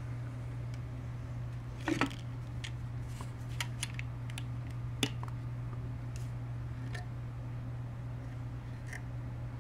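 Light clicks and taps of an aluminium-and-wood birdhouse being handled as its hinged panel is closed and the hook latch worked. The loudest knock comes about two seconds in, with a quick run of small clicks after it and a sharp click about five seconds in, all over a steady low hum.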